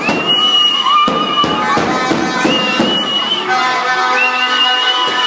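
Lively music with a high lead melody of long held notes, each sliding up into pitch.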